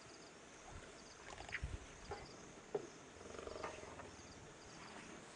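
Faint sounds of male lions feeding on a carcass in shallow water, with scattered short clicks and crunches as it is torn and chewed. A short low lion growl comes a little past halfway.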